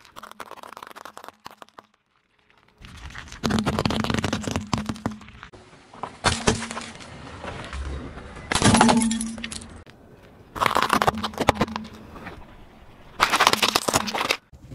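Car tyre rolling over and crushing a pile of small gel-filled balls, giving bursts of crackling and popping as they burst. This comes in about five separate bursts with short lulls between them.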